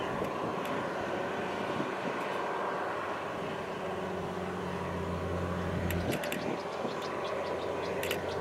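Diesel engine of a Kubota DC70 crawler machine running steadily under load as its rotary tiller churns a flooded rice field. A few sharp clicks come near the end.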